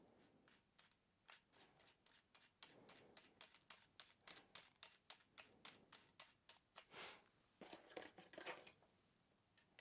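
Faint small metallic clicks, a few a second, from the chuck of a Footprint 150A hand drill being twisted by hand to open its jaws for a drill bit, with a short rubbing sound or two near the end.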